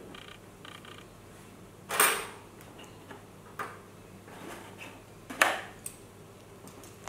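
Sharp clicks and knocks from a cardboard coin bank being handled, the loudest about two seconds in and again about five and a half seconds in, with a few faint ticks at the start.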